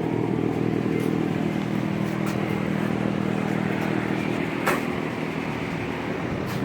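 Steady drone of a running motor or engine, with a few faint clicks, the clearest about two-thirds of the way in.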